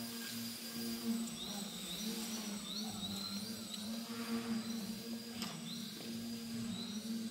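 Small electric 3D aerobatic RC plane's propeller and motor buzzing, swelling and fading as the throttle is worked. Short whines rise in pitch with each burst of power, and there is one sharp tap about five seconds in.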